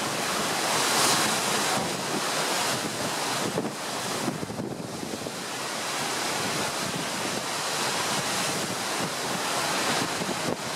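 Wind rushing over the microphone, mixed with the wash of open-sea waves; a steady noise that swells and eases slowly.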